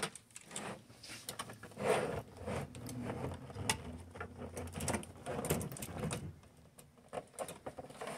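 Cable plugs being pushed into the rear ports of a Beelink SER5 Pro mini PC: a string of irregular plastic clicks and knocks with rustling of the cords.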